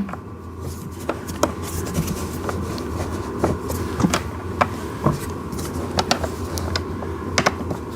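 Irregular light clicks and knocks of hard plastic parts being handled as a bolt is pushed through a ride-on toy tractor's steering column, over a steady low hum.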